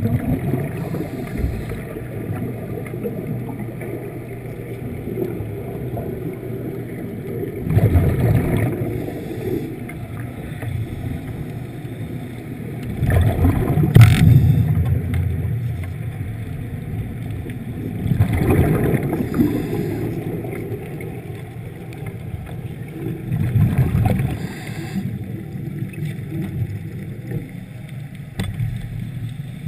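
Underwater recording with a steady low rumble, broken by four surges of rushing bubbles about five seconds apart, the rhythm of a diver's exhalations through the breathing gear; one sharp click comes in the middle.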